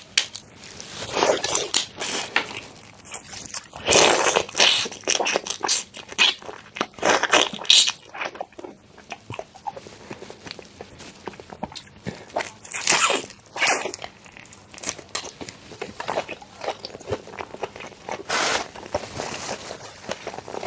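Close-miked shells of whole prawns crackling and snapping as they are twisted apart and peeled by hand, in a run of crunchy bursts, several of them louder.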